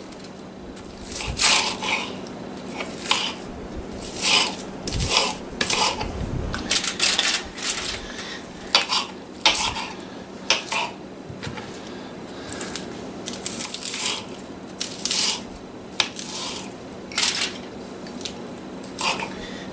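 A kitchen knife chopping a head of lettuce on a cutting board: a run of crisp, unevenly spaced chops, about one or two a second.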